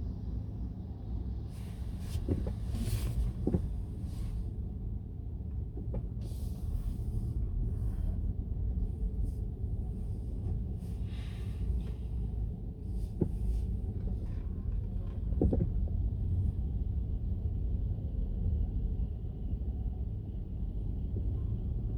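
Steady low rumble of a car's engine and road noise heard from inside the cabin while driving, with a few brief hissing swishes.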